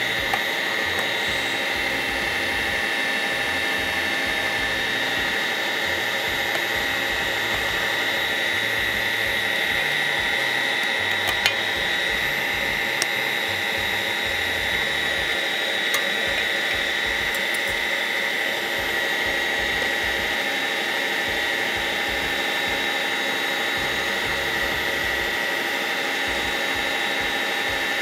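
Kitfort KT-2104 electric meat grinder running steadily with a high whine while it pushes minced meat through the sausage-stuffing tube into a casing. A few faint ticks come in around the middle.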